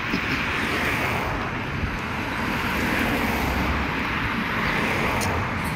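Road traffic on a busy street: cars driving past close by, a steady rush of engines and tyres.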